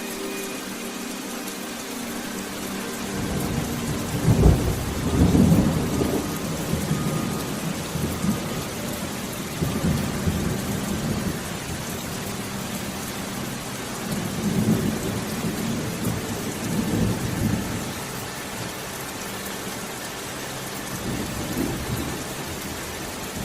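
Steady rain, with low rumbles swelling and fading several times.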